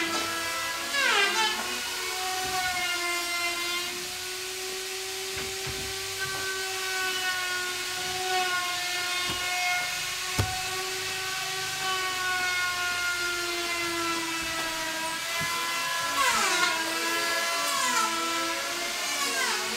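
Handheld electric power tool whining steadily at high speed, its pitch wavering and briefly dipping then recovering near the start and again about 16 seconds in.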